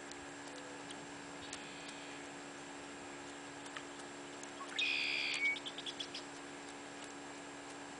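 A bird calls once about five seconds in: a short, buzzy, steady-pitched call lasting under a second, followed at once by a quick stutter of short notes. Under it there is a faint steady hum.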